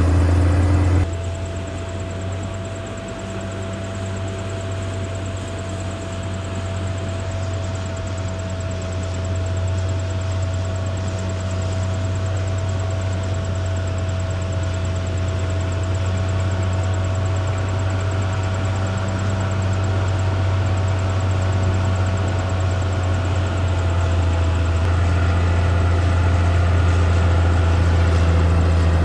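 Caterpillar D6R XL bulldozer's diesel engine running steadily, a deep low drone with a thin steady whine above it. The sound cuts abruptly to a quieter level about a second in, then slowly grows louder.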